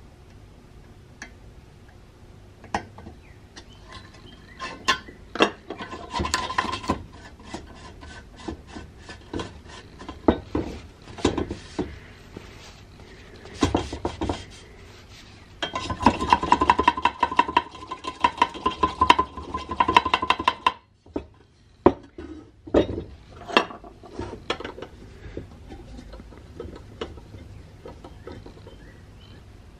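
Metal clinks, taps and scrapes from handling the brass parts of an antique blowlamp and small hand tools. Midway there are a few seconds of fast, scratchy rubbing strokes.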